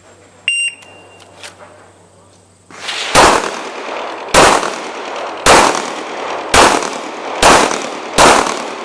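Shot timer beeps once about half a second in, then a pistol fires six shots, roughly one a second, each with a ringing echo.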